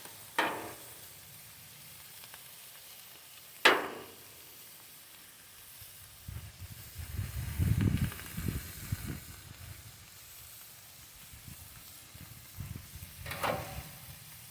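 Sliced steak, bell peppers and onions sizzling steadily on a flat-top griddle, with three sharp metal clacks of a spatula on the griddle, one near the start, one a few seconds in and one near the end. A low rumble comes and goes in the middle.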